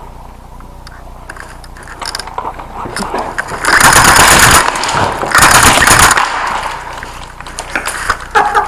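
Airsoft shotgun fire: two loud rapid-fire bursts of about a second each, about half a second apart, after a few light scuffing clicks.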